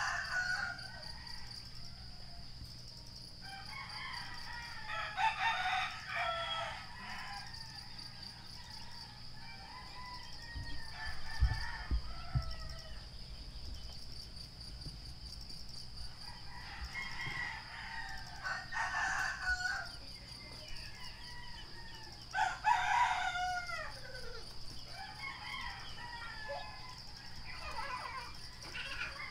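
Roosters crowing in turn, a crow every few seconds, some ending in a falling tail, over a steady high-pitched whine.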